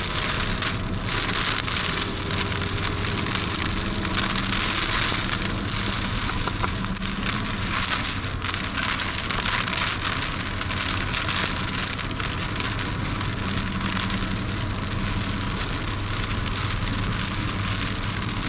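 Heavy rain falling on a vehicle, a steady hiss, over the low hum of the running engine.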